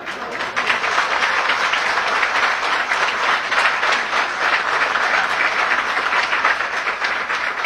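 Audience applauding: a dense, steady clapping that holds for several seconds and dies down near the end.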